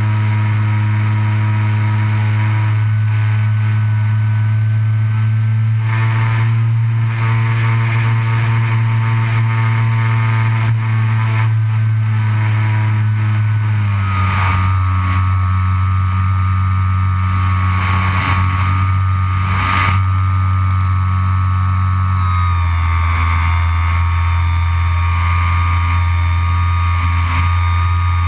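Parkzone Bf 109 RC plane's electric motor and propeller droning steadily, heard from on board. The pitch steps down about halfway through and again later as the plane is throttled back and descends toward the field.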